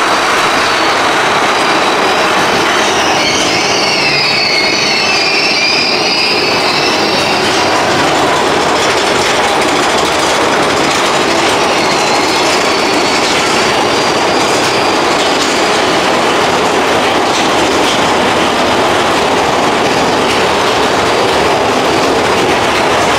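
Mine-train roller coaster cars of Big Thunder Mountain Railroad running along the track with a steady loud rattle and rumble, and a wavering high wheel squeal about three to seven seconds in.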